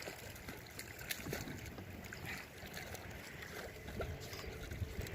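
Water lapping and trickling against a small boat, with scattered light knocks and clicks.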